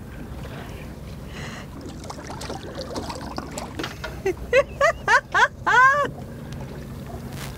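A boat engine idling steadily, with wind and water noise. About four and a half seconds in comes a quick run of short, high-pitched cries, ending in a longer falling cry just before six seconds.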